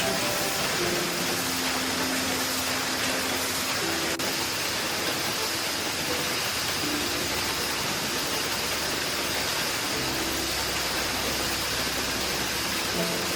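Steady, dense hiss and din of factory machinery, with faint notes of background music underneath.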